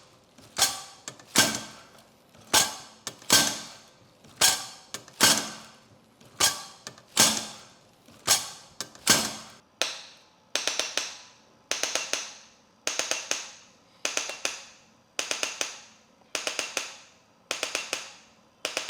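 Handheld chiropractic adjusting instrument clicking against the shoulder muscle, about one to two sharp clicks a second. From about halfway in, each stroke becomes a quick burst of four or five clicks.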